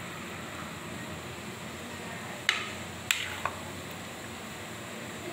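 Spoon knocking against a serving bowl three times in quick succession about halfway through, while boiled chickpeas and vegetables are stirred, over a steady background hum.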